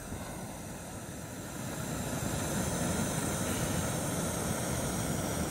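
BRS ultralight gas stove on a butane/propane canister burning under a titanium pot: a steady hiss of the burner flame, growing a little louder over the first couple of seconds and then holding even.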